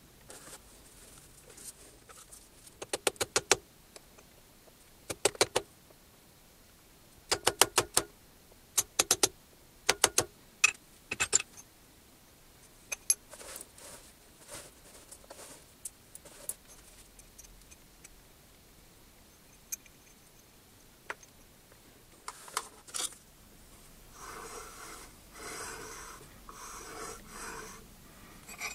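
Metal tools and small steel parts clinking and tapping in short clusters of sharp knocks, as workpieces are handled and set in a milling-machine vise. Near the end, a longer rustling clatter of tools being rummaged through.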